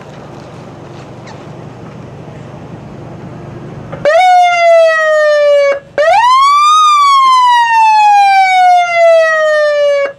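A low steady rumble, then about four seconds in a loud wailing tone that slides down, breaks off briefly, then rises and slowly falls away before cutting off suddenly.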